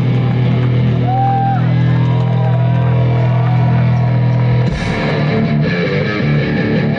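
Live rock band playing loud through a festival PA, with a distorted electric guitar chord held and ringing. The held chord breaks off suddenly a little under five seconds in, and the sound turns busier.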